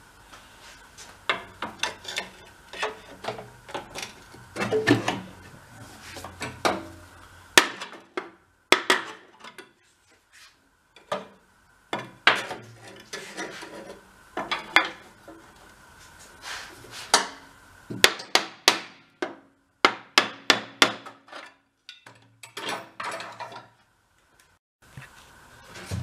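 Hand tools knocking, tapping and scraping against metal parts: many irregular sharp clanks with short pauses between clusters.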